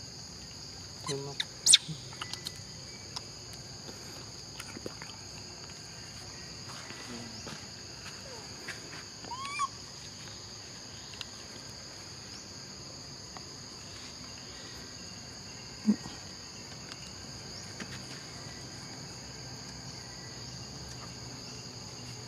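Steady high-pitched drone of insects. A few sharp clicks and knocks come through it, the loudest about two seconds in and another about sixteen seconds in, with a short chirp near the middle.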